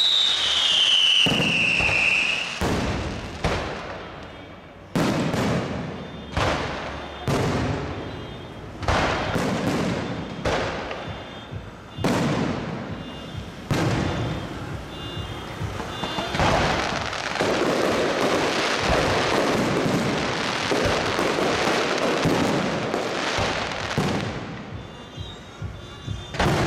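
Fireworks display: a rapid series of bangs from aerial shells, roughly one a second, each trailing off, with a stretch of dense crackling in the middle. A whistle falls in pitch during the first two seconds.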